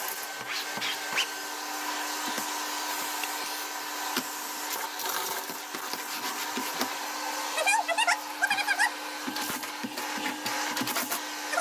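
Bush bagged cylinder vacuum cleaner running steadily at medium suction, with scattered clicks and rattles of nacho pieces being picked up. About eight seconds in there are a few short squeaky sounds.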